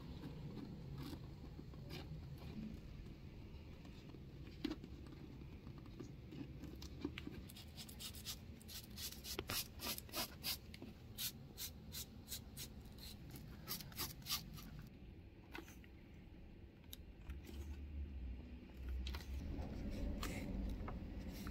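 Wire brush scraping vachetta leather in quick, scratchy strokes, with a fast run of sharp strokes in the middle as the brush works a strip of new leather.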